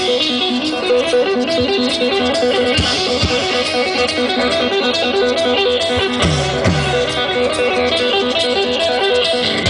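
Live band playing amplified rock music, an electric guitar picking a repeated riff, with two low sliding notes a little past the middle.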